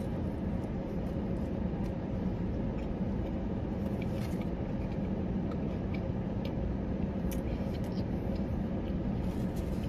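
Steady low hum of a running car heard from inside its cabin, with a few faint clicks of someone eating a sandwich.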